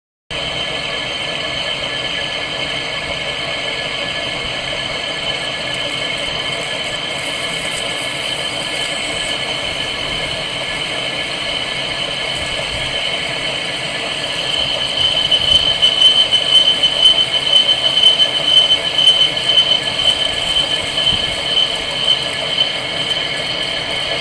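Metal lathe turning a spur gear, running steadily with a high-pitched whine over the machine noise. About halfway through it grows louder and more uneven.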